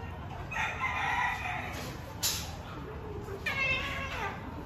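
Cat yowling in a mating encounter with a cat in heat: two drawn-out calls, the second falling in pitch, with a sharp click just after two seconds.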